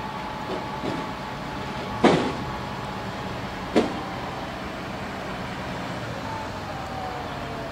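Forklift engine running steadily as it drives, with two sharp, loud clanks about two and four seconds in, and a slowly falling tone near the end.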